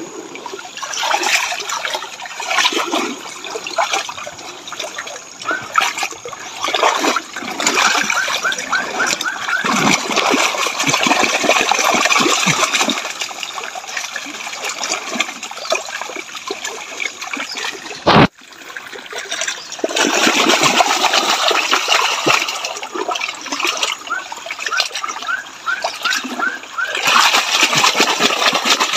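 Water splashing and sloshing in surges as a plastic gold pan loaded with mud and sand is swirled and shaken in a shallow stream, washing the lighter material off.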